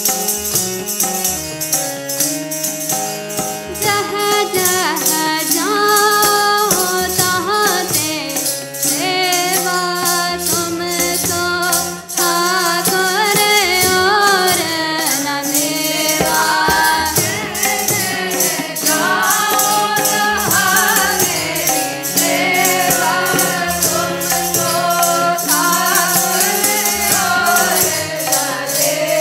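Sikh kirtan: two harmoniums sustaining chords with tabla playing a steady rhythm, and from about four seconds in a sung melody carried over them.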